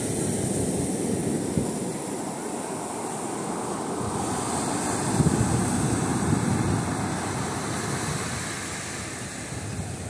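Small ocean waves breaking and washing up onto a sandy beach, with wind buffeting the microphone. The surf swells louder about a second in and again about five seconds in.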